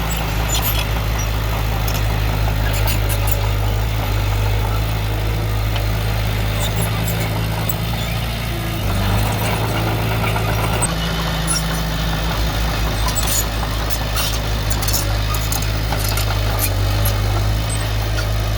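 Heavy diesel engine of earthmoving machinery running steadily, its note shifting slightly about halfway through, with scattered light metallic clinks.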